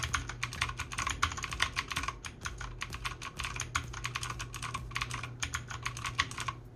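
Rapid, irregular key presses on a mechanical keyboard with Outemu Blue clicky switches, each press a sharp click, several a second.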